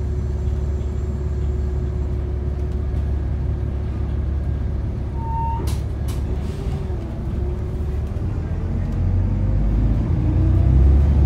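Alexander ALX400 double-decker bus's diesel engine running with a steady low rumble heard from inside the lower deck. About five and a half seconds in there is a short tone and a sharp hiss of compressed air. From about nine seconds the engine gets louder and a rising whine sets in as the bus pulls away.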